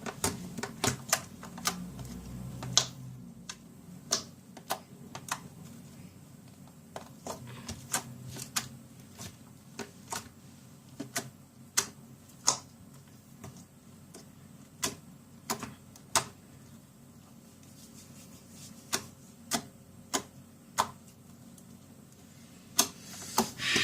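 Clear homemade borax slime being squeezed and worked by hand, giving off scattered sharp pops and clicks at an irregular pace.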